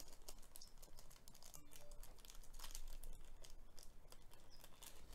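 Small clear plastic parts bag crinkling as it is handled between the fingers, a faint run of crackles.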